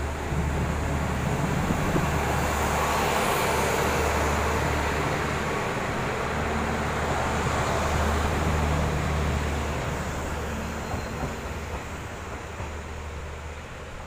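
Kanto Railway KiHa 310 series diesel railcar pulling away from the platform and passing, its diesel engine running under load with a steady low hum. It is loudest in the middle, as the cars go by, and fades as the train moves off.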